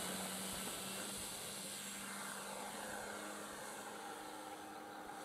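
Electric motor and propeller of a Dynam Waco 1270mm radio-controlled biplane running at power, with a steady drone that slowly fades as the model moves away.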